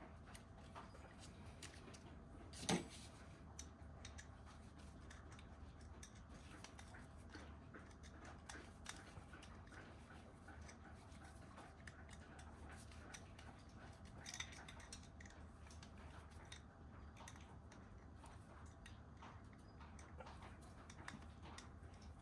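Near silence with a low hum and faint scattered clicks and taps, with one sharper tap about three seconds in.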